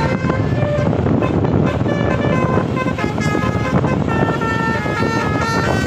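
Bus 'telolet' musical air horn playing a tune of short held notes that step up and down in pitch, over a steady noisy rumble.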